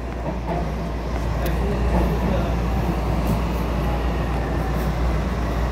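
Steady low rumble of a Miami Metrorail Hitachi rail car heard from inside the car: wheels on rail and running gear as the train rolls alongside a station platform.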